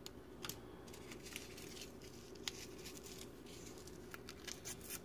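Faint, scattered small clicks and light crinkles as soft pretzels on aluminium foil are handled and coated with butter from a packet, over a faint steady low hum.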